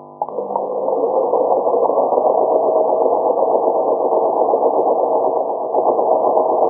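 Sewing machine running steadily at speed while stitching a seam, starting just after the beginning and stopping near the end.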